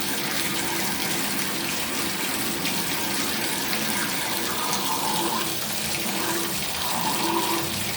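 Water running steadily from an open shower valve turned up to full hot.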